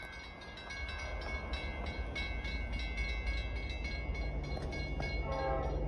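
Railroad warning bell ringing steadily in quick, even strokes. A low rumble from an approaching train builds from about four seconds in, with a short tone near the end.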